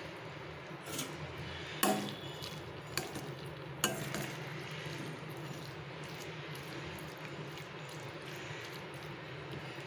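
A metal spoon stirring thick curry in a stainless-steel pan, with four sharp clinks of the spoon against the pan in the first four seconds. A steady low hum runs underneath.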